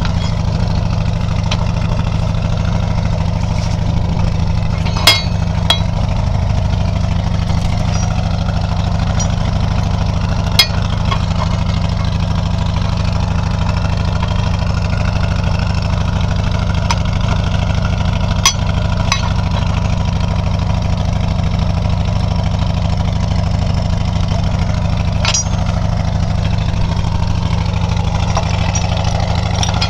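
A heavy machine's engine running steadily with a low hum, broken four times by sharp knocks or clanks.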